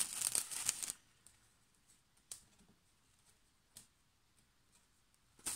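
Clear plastic packaging rustling and crinkling for about a second as it is handled, followed by a couple of faint, short clicks.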